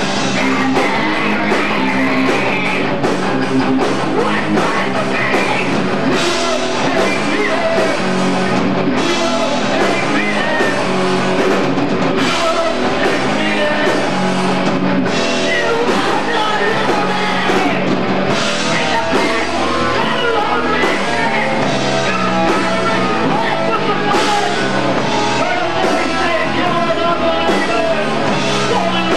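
Hardcore punk band playing live: distorted guitars, bass and drums with vocals over them, loud and continuous, as picked up by a camcorder's microphone in the hall.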